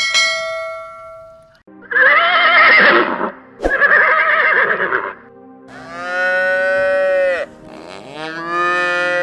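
A ringing tone fades out at the start. Then a farm animal calls four times: two quavering, whinny-like calls followed by two longer, steadier calls that drop in pitch at the end.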